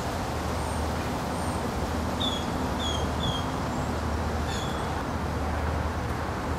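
A few short, high, downward-falling bird chirps, a cluster of three about two seconds in and one more near the middle, over a steady low rumble of background noise.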